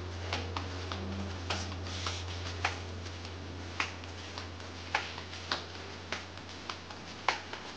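Steady low hum of a ship's interior, with sharp irregular clicks about every half second to a second, in step with someone walking a carpeted corridor with a handheld camera.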